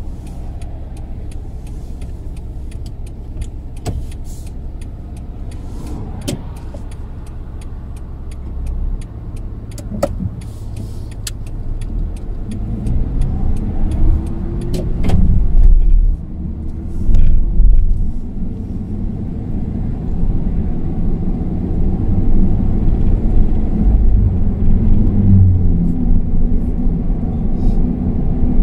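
Car on the move: a low engine and road rumble with a few light clicks at first. It grows louder from about a third of the way in as the car picks up speed, with a rising engine note, then settles into steady, louder road noise.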